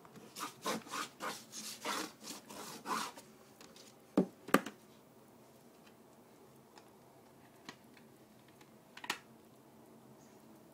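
Paintbrush scrubbing in the pans of a plastic watercolour paint tray: a run of about eight quick scratchy strokes, then two sharp knocks about four seconds in and a couple of light taps later on.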